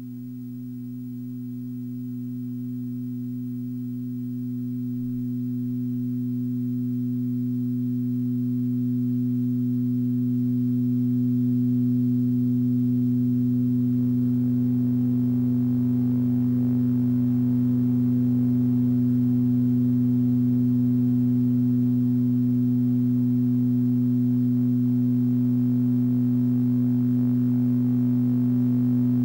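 A sustained low drone of steady tones that swells louder over roughly the first ten seconds and then holds. Fainter, higher tones join about halfway through.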